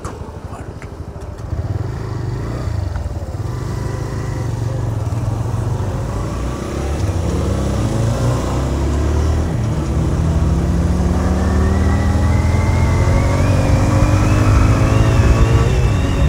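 TVS Raider 125's single-cylinder engine pulling away from a stop and accelerating. Its note grows louder and climbs steadily in pitch over the second half, with a short break about nine and a half seconds in as it shifts up.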